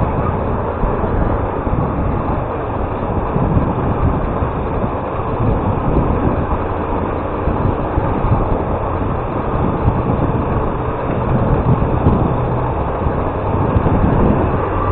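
Motorcycle running steadily while riding, with road and wind noise.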